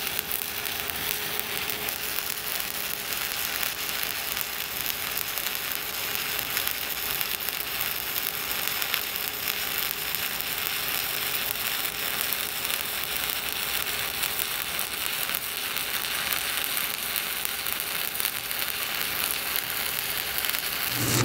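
Stick-welding arc crackling and sizzling steadily and without a break as a Böhler Fox EV 50 7018 low-hydrogen electrode lays a buildup (buttering) bead on steel plate.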